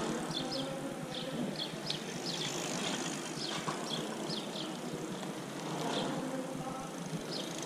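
Mountain bikes rolling past on a paved road, tyres running over the surface, with a swell as riders go by about six seconds in. Short high chirps repeat irregularly throughout.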